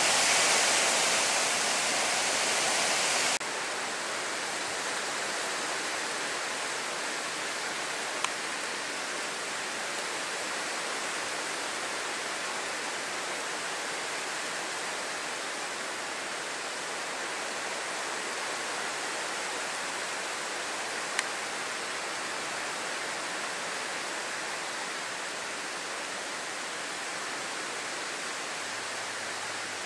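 Steady hiss of heavy rain falling. About three seconds in it drops suddenly to a lower level, and two faint clicks come much later.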